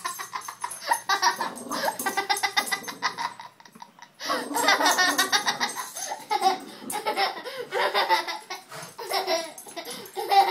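A young child laughing hard in rapid, repeated bursts, with a brief pause a little before four seconds in.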